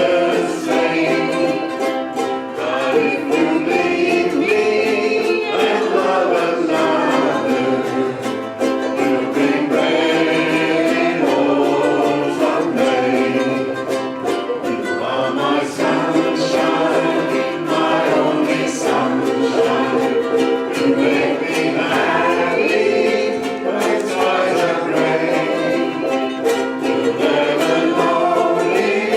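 Several ukuleles strummed together with a group of voices singing along, a steady strummed rhythm under the sung melody.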